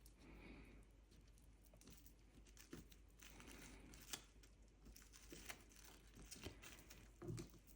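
Near silence, with faint soft rustling and a few light clicks from hands working modelling paste on cling film. There is a soft knock near the end.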